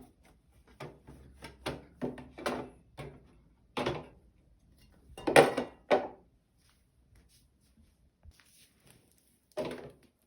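Things being handled and set down: an irregular run of short knocks and clatters, the loudest about halfway through, then a pause and one more knock near the end.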